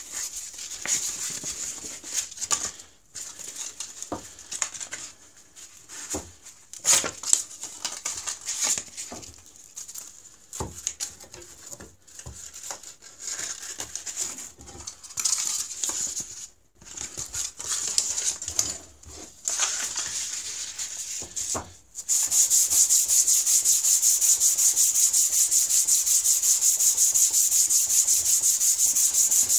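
A water sharpening stone scrubbed back and forth on 240-grit sandpaper to flatten its hollowed face and grind out deep scratches. Uneven scraping strokes with short pauses give way, about two-thirds of the way in, to steady, louder, fast scrubbing.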